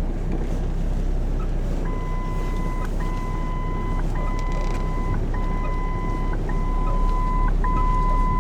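Steady drone of a car in motion heard from inside the cabin, and from about two seconds in a car's seatbelt warning chime: six long, even beeps of about a second each, with short gaps between.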